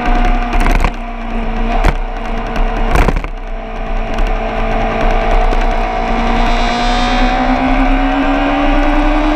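Vehicle engine running hard and steady, then its revs climb smoothly over the last few seconds. Three sharp cracks come in the first three seconds.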